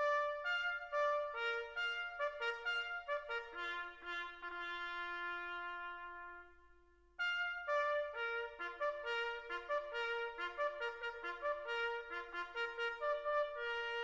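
Background music: a trumpet playing a melody in two phrases, with a short break about seven seconds in.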